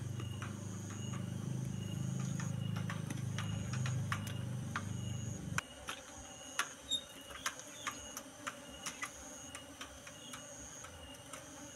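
Low buzzing hum of Asian honeybees (Apis cerana) crowding the comb, which cuts off suddenly about halfway through. Sharp clicks and light ticks from the comb and its wooden strip being handled are scattered throughout, louder in the second half.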